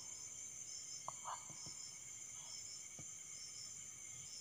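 Quiet background in a pause: a faint, steady high hiss with soft, high chirps recurring every second or so. There are a couple of faint blips a little over a second in and a faint click about three seconds in.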